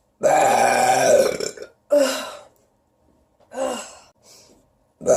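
A woman's loud soda burps from drinking carbonated soda. One long pitched burp lasts about a second and a half, then a shorter one follows, then a brief one a little over three seconds in.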